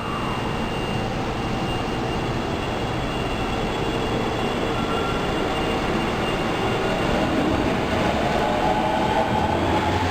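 Osaka Metro Tanimachi Line subway train running, a steady rumble of wheels on rail that builds slightly, with a faint whine rising in pitch near the end.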